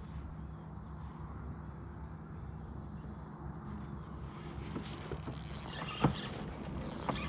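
Steady low hum of a small fishing boat's motor with a thin high whine over it. From about halfway through, crackling noises and a couple of sharp clicks are added.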